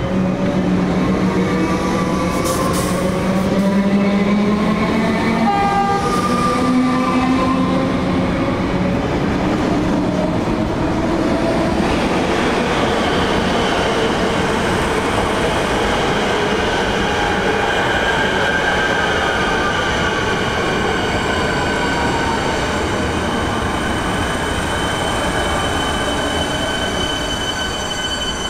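Melbourne Metro suburban electric trains running through a station: the electric motors whine in several tones that glide up and down in pitch over the first half, then settle into steady high tones with a squeal of wheels on rail as a second train passes on the next track.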